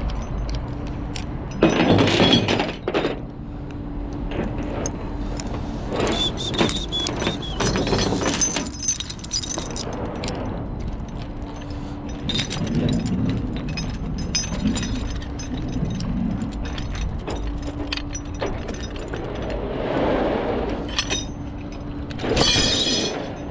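Metal tow chains and hooks clanking and jangling as they are handled in repeated bursts, over the steady hum of the tow truck's engine.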